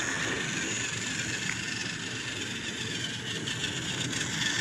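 Battery-powered toy Thomas train running on plastic track: a steady motor whir and wheel rattle, with a few faint clicks about three to four seconds in.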